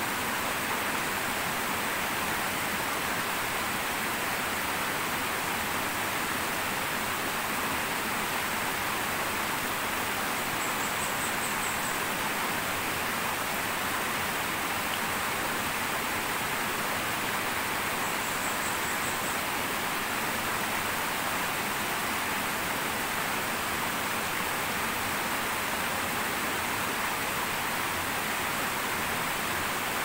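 Water of a shallow forest stream pouring over a low, wide cascade, a steady, even rush.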